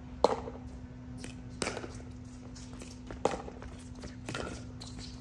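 Pickleball rally: paddles hitting a plastic pickleball back and forth, four sharp pops about a second to a second and a half apart, over a steady low hum.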